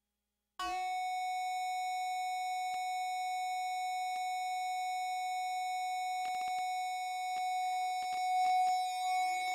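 Synthesizer holding one steady electronic tone that starts abruptly about half a second in, with a few faint clicks over it in the second half.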